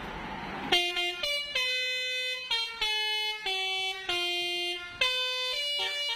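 Basuri 'telolet' musical bus horn playing a tune: a run of about nine held multi-tone notes, each a few tenths of a second to nearly a second long, changing pitch from note to note. It starts after a short burst of hiss about the first second in.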